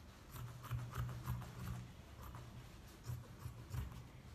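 Scissors snipping through printed fabric in a run of short cuts, over a faint low hum.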